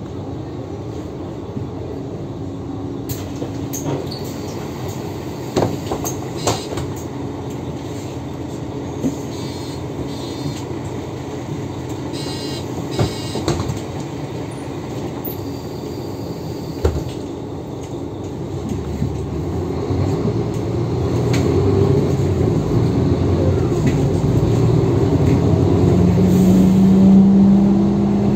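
2008 Mercedes-Benz Citaro G articulated bus with a ZF Ecomat automatic gearbox, heard from inside: steady engine and cabin noise with a few short knocks, then the engine and gearbox grow louder under acceleration, with a whine rising near the end.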